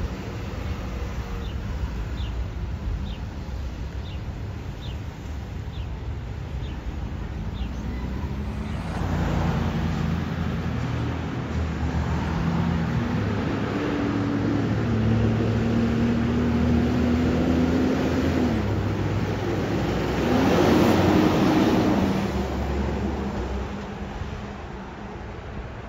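School bus diesel engine and road noise heard from inside the cab as the bus speeds up. The engine pitch climbs and drops back several times as the automatic transmission upshifts, holds steady for a few seconds, then rises again with a louder surge.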